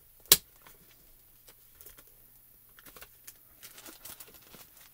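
Clear plastic stamps and their plastic storage sheet being handled: one sharp click of hard plastic about a third of a second in, then scattered light clicks and crinkles.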